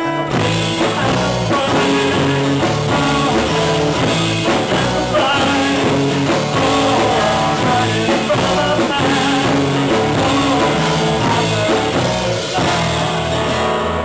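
Live band playing a rock song: acoustic guitar strumming over electric bass and drums, with a man singing into a microphone.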